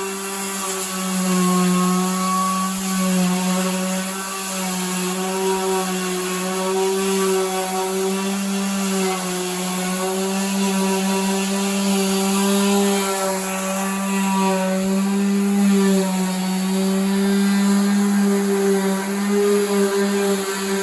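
Power sander running continuously on a car fender, its steady motor hum wavering slightly in pitch over a rasping hiss of abrasive on the panel.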